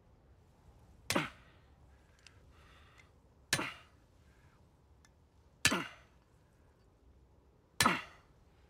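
A rock or fist striking a metal bracelet locked on a wrist, in a bid to break it off: four sharp hits about two seconds apart, each with a short ringing tail.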